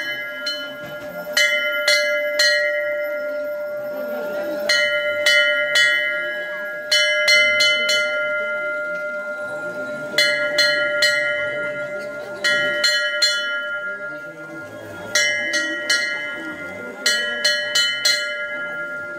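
Metal temple bell struck in quick groups of three or four strokes, a new group every two to three seconds, each stroke ringing on bright and sustained. A steady tone hums underneath throughout.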